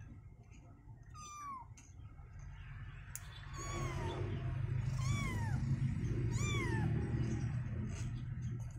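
A young kitten meowing four times, thin high calls that each fall in pitch, as it is held down to have its claws trimmed.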